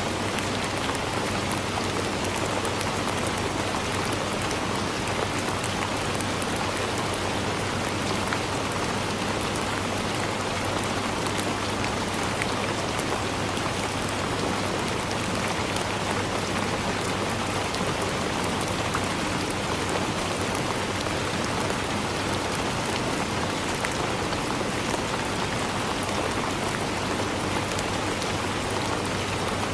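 Steady rain falling on forest leaves, a dense even patter of many small drops.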